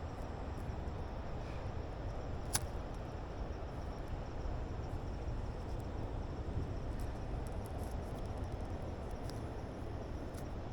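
Steady outdoor background noise with faint insects chirping at dusk, and one sharp click about two and a half seconds in.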